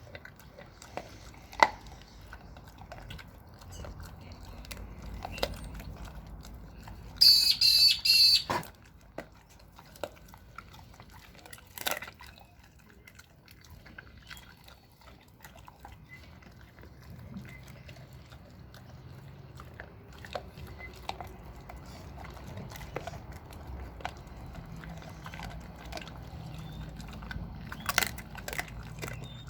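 A dog chewing raw meat and bone, with irregular wet crunches and cracks. About seven seconds in there is a loud, high, squawk-like call lasting about a second.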